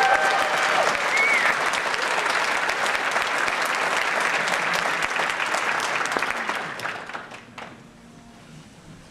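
Audience applauding as the chorus is introduced. The clapping holds steady and dies away about seven seconds in, with a voice calling out over the start.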